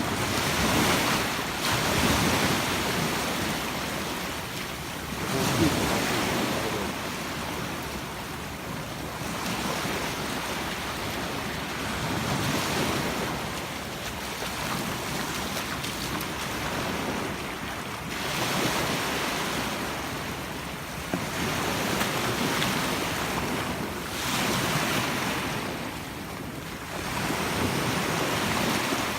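Sea waves washing onto a beach, the surf swelling and fading every few seconds, with wind buffeting the microphone.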